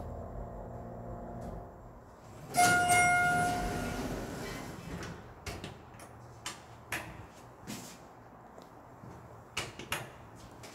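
Schindler MT 300A hydraulic elevator arriving at a floor: a low hum fades out, then a single ringing chime sounds about two and a half seconds in and lasts a second or so. The doors then slide open amid a series of clicks and knocks, including button presses on the car panel.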